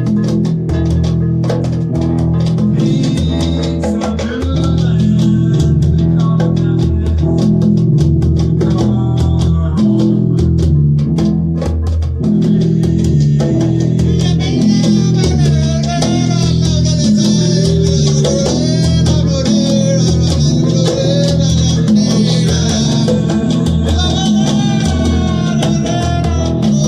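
Band music with bass, guitar and drums playing a steady groove. About halfway through, a bending lead line comes in over it.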